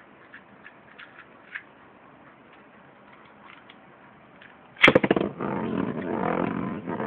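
Beyblade tops launched with ripcord launchers about five seconds in: a quick ratcheting rip, then the tops spinning and scraping around a plastic stadium with a steady rattle. A few faint clicks of handling come before the launch.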